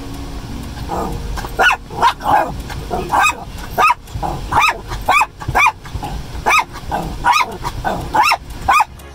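Small curly-coated white dog barking at the sweeping windshield wipers, in quick high-pitched yips that come in short runs of two or three.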